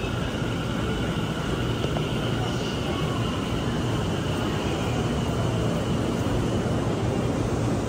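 Electric commuter train at a station platform: a steady low rumble with a faint high whine that fades out about six seconds in.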